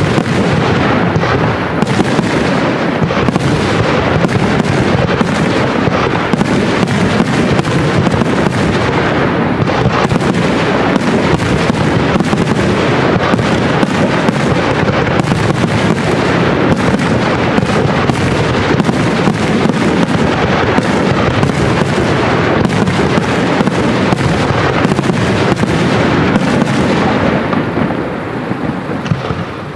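Professional fireworks display: a dense, continuous barrage of shells and comets launching and bursting, many sharp reports every second, thinning out and quietening near the end.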